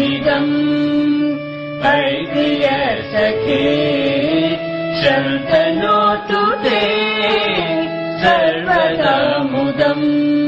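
A recorded Sanskrit birthday-wish song playing: a wavering melody over steady held drone tones.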